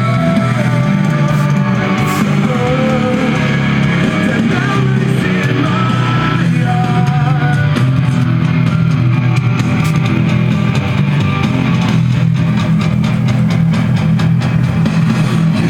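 Rock music with electric guitar and a singing voice.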